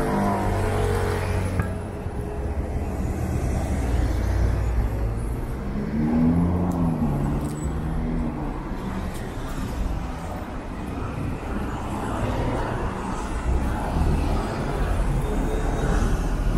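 City street traffic: motor vehicles running and passing, with a continuous low engine rumble and road noise. A pitched sound rises and falls briefly around the middle.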